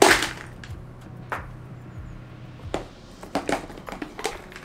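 Chocolate popcorn in a cardboard cup shaken and handled: a loud rattle at the start, then several light taps and clicks as the cup is stood on the table and handled.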